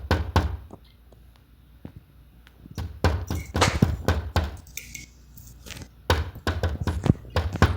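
Repeated knocking and banging on a door, in two bouts of rapid thuds about three seconds in and again about six seconds in.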